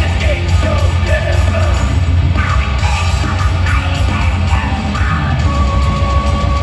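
Symphonic black metal band playing loud live in an arena, heard from the crowd: distorted guitars and heavy drums and bass with a harsh screamed vocal. A long held high note comes in about five seconds in.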